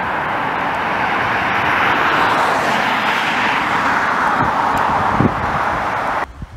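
Peugeot 208 hatchback driving past, its tyre and engine noise swelling as it approaches and passes close by, then cutting off suddenly near the end.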